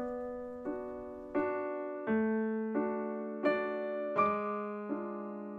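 Slow background piano music: a note or chord struck about every 0.7 seconds, each left to ring and fade.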